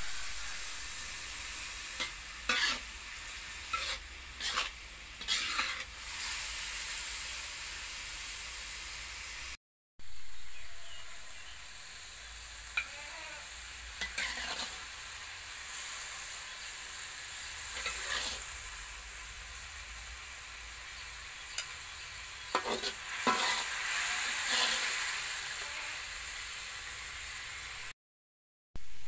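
Shredded papaya and tiny shrimp sizzling in a hot metal wok, a steady hiss, with a metal spatula scraping and knocking against the wok as the food is stirred and scooped onto a plate.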